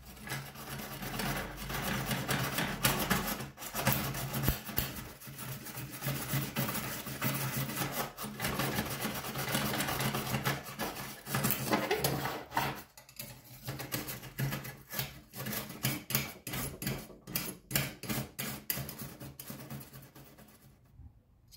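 Small brass wire brush scrubbed by hand back and forth over a rusty steel scabbard part, taking off rust. Quick continuous scrubbing at first, then distinct strokes about two or three a second for the last several seconds.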